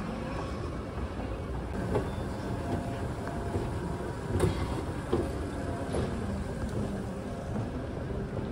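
Inclined moving walkway running with a steady low rumble and mechanical hum, with a few sharp clicks and knocks.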